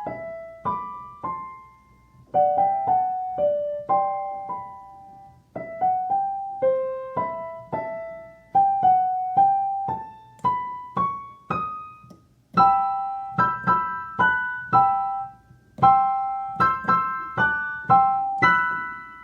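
Piano playing a simple melody high on the keyboard in short phrases of struck, decaying notes with brief pauses between them, moving to chords in the last third.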